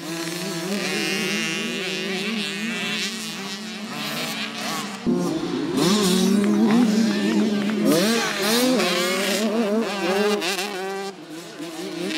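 Several small youth motocross bikes racing, their engines revving up and down as the riders throttle through the track. There is a sudden jump in loudness about five seconds in.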